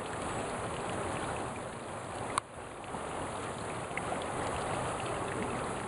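Steady rushing of a small creek running beneath ice at the top of a frozen waterfall, with one sharp click about two and a half seconds in.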